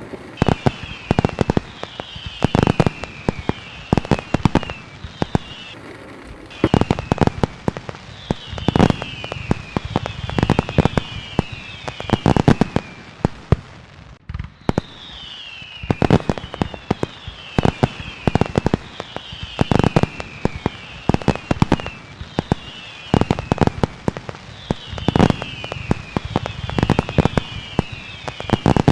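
Fireworks display: a rapid run of sharp bangs and bursts, over repeated short high whistles that fall in pitch, roughly one a second.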